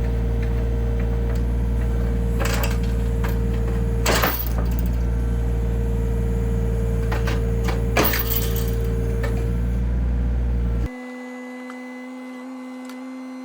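John Deere 35D mini excavator's diesel engine running steadily under work, with a few sharp knocks and scrapes from the bucket working the ground. About eleven seconds in, the sound cuts suddenly to a quieter, thinner steady hum.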